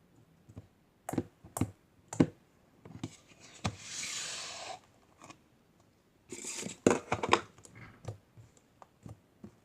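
Slime being squeezed and kneaded by hand, giving a string of sharp wet clicks and pops, with a longer crackling stretch a little before the middle and another cluster of pops later on.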